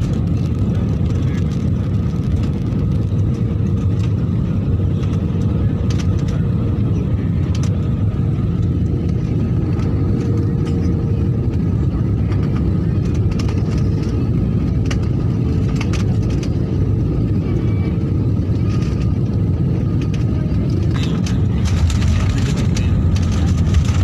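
Cabin noise of an Airbus A320-family jet on final approach: the steady low rumble of engines and airflow, with a faint steady tone over it. About three seconds before the end it grows louder and hissier as the aircraft touches down and the spoilers rise.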